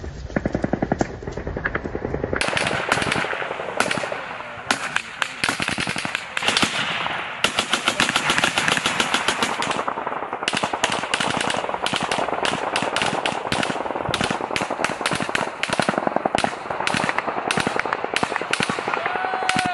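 Rapid automatic gunfire in long bursts, many shots a second, starting about two seconds in, with a short break about ten seconds in.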